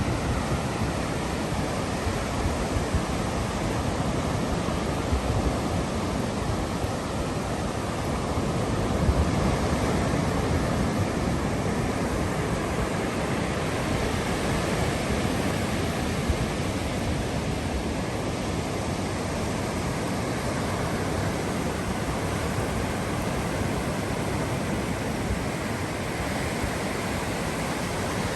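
Ocean waves washing ashore as a steady, unbroken surf noise, swelling slightly about nine seconds in.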